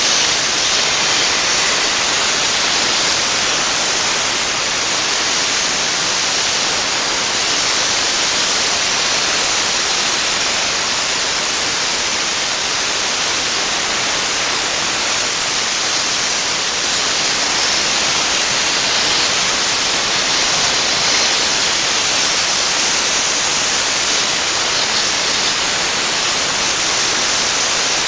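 Dry-ice blasting gun blowing a loud, steady hiss of compressed air and dry-ice pellets onto a car engine to clean it, unbroken throughout.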